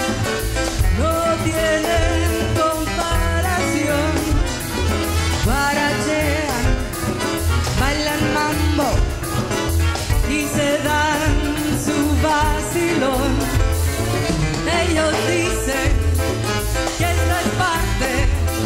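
Live Latin band playing salsa: trumpet and trombone over keyboard, bass, drum kit and hand percussion, with a steady beat.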